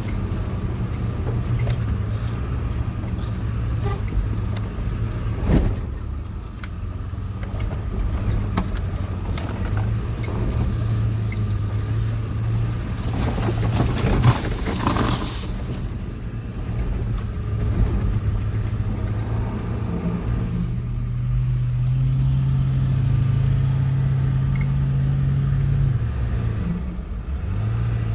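A vehicle engine running steadily under load, its pitch stepping up about twenty seconds in and holding for several seconds before dropping back. A couple of knocks and a brief burst of hiss come partway through.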